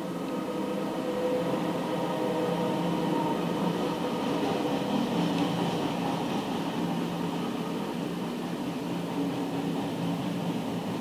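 Freight train of flat wagons rolling past at close range, a steady rumble of wheels on rails with a hum of several steady tones through it.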